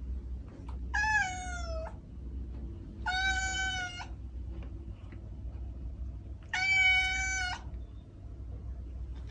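A kitten meowing three times, each high meow about a second long, the first falling in pitch, over a steady low hum.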